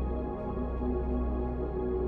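Background ambient music with held, steady tones over a deep bass.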